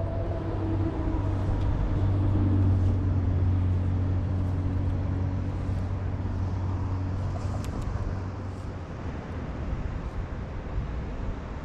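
Motor vehicle engine running, a steady low hum that fades away about eight seconds in.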